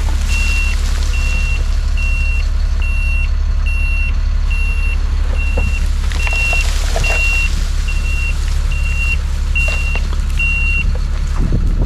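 Dump truck's engine running steadily while its backup alarm beeps about twice a second, stopping about a second before the end, as the raised bed pours a load of dirt.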